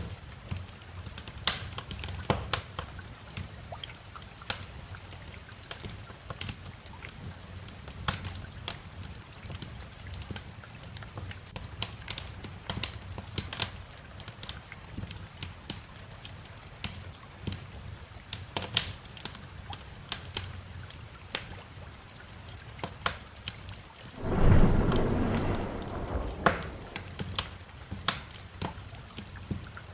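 A wood fire crackling with frequent sharp pops and snaps over a steady bed of rain. Late on, a roll of thunder comes in suddenly and rumbles for about three seconds before fading.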